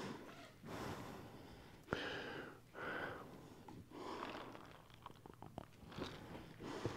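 Faint breathing close to the microphone, a soft breath about once a second, with a few small clicks about midway.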